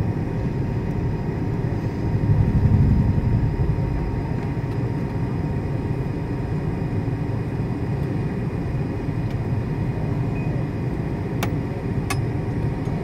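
Cabin noise inside a taxiing MD-80 (Super 80) airliner: the steady low rumble of its running engines and air system, with faint steady whines above it. The rumble swells for a moment about two to three seconds in, and two light clicks come near the end.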